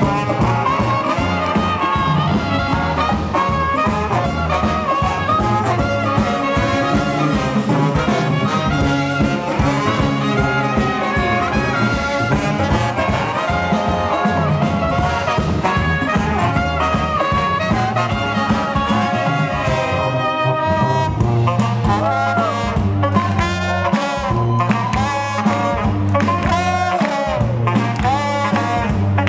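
Brass band playing live: trumpet and trombone carry the tune over a sousaphone bass line and a drum kit. The drumming gets busier about two-thirds of the way in.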